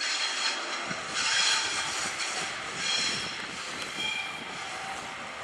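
A train moving through the station with a steady rumble, and high-pitched metallic squeals that come and go from about a second in to about three seconds in, with one more brief squeal near four seconds.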